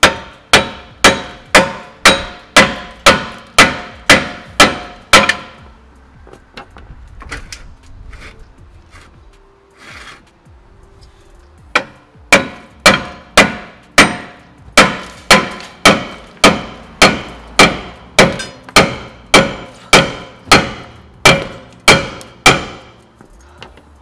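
A hammer striking a Kia Soul's rusted rear brake rotor, a drum-in-hat rotor with an internal parking-brake drum, to knock it loose from the hub. The blows ring like metal and come about two a second: about eleven, a pause of several seconds, then about twenty more.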